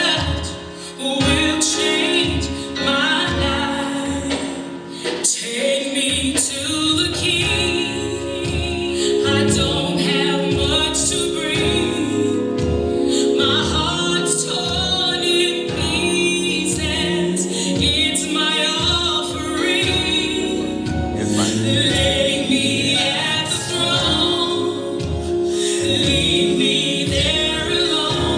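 Gospel song playing: singing over instrumental backing, with a steady beat coming in about six seconds in.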